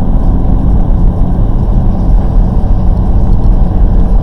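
Steady in-cabin drone of a Volkswagen Golf R driving through a snowstorm: engine and winter tyres rumbling on a snow-covered road.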